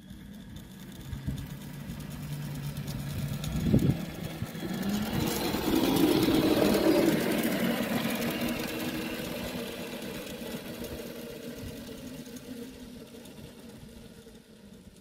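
Small ride-on miniature railway locomotive running along the track with its motor going, growing louder as it comes close about six seconds in and then fading as it runs off down the line. A single sharp thump a little under four seconds in.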